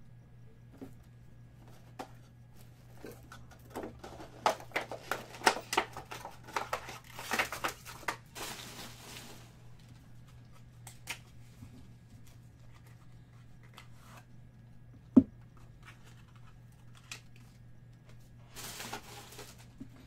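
A small cardboard box of trading cards being handled and opened by hand: scattered clicks and rustles, a stretch of tearing and rustling packaging about seven seconds in and again near the end, and one sharp knock about fifteen seconds in.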